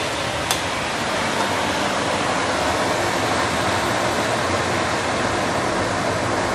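Steady sizzling hiss from sweet potato leaves and hot water cooking in a stainless steel wok, over the running cooker hood fan, with a light click about half a second in.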